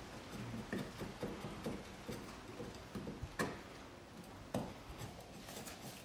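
Metal knife and hive-tool blades scraping and clicking on the top edges of a stingless bee hive box as the edges are cleaned up for the next section to fit. The clicks come irregularly, with two sharper ones about three and a half and four and a half seconds in.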